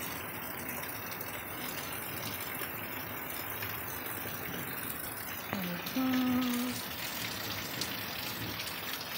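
Steady rain falling, an even hiss throughout. About six seconds in comes one brief pitched call, a voice or an animal.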